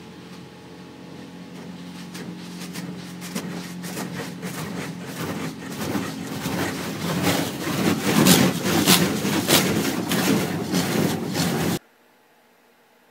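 Automatic car wash heard from inside the car: water spray hitting the windshield and body over a steady low hum, growing louder and busier with rapid irregular spatters. It cuts off abruptly near the end.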